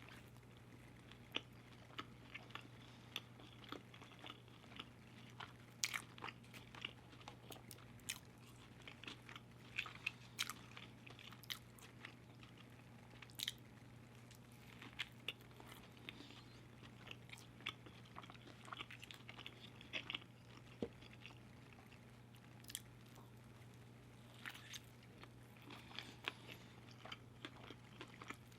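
Close-miked chewing and biting of crunchy fast food, with irregular sharp crunches throughout over a faint steady low hum.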